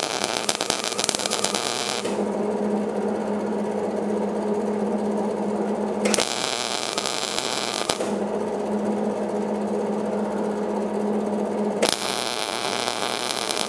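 Hobart Handler 140 MIG welder stitch welding thin, rusted lawn mower deck steel under 75/25 argon mix: three crackling arcs of about two seconds each, at the start, about six seconds in and about twelve seconds in, with pauses between them to let the heat cool and avoid burning through. A steady low hum runs underneath.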